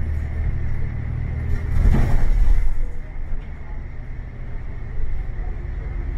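A bus running, heard from on board: a steady low engine and road rumble, with a louder surge of noise about two seconds in that drops back a second later.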